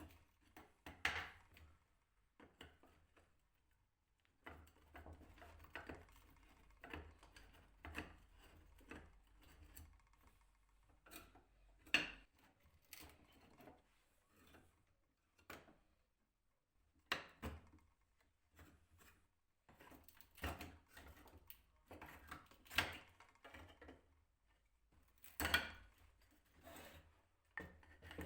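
Parts of a wooden folding stool being handled and worked on by hand: irregular clicks and knocks of wood and tools, with quiet stretches between.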